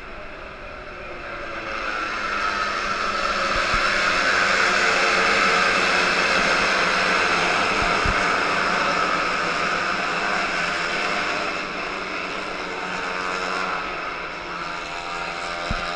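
A field of Moto2 racing motorcycles with 600 cc Honda four-cylinder engines passing the grandstand at speed, their high-revving sound swelling over a few seconds and then slowly fading as the pack moves away down the track.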